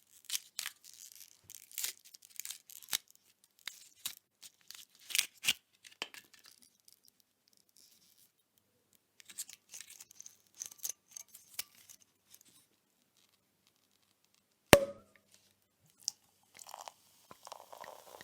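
Champagne bottle being opened: a long run of small crackles and tearing sounds as the foil and wire cage are worked off, then a single loud cork pop about three-quarters of the way through, followed by a steady fizzing hiss as the wine foams.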